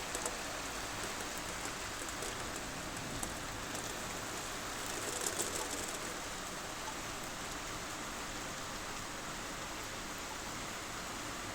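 Thunderstorm rain falling steadily, an even hiss, with a few sharper drop splashes just after the start and about five seconds in.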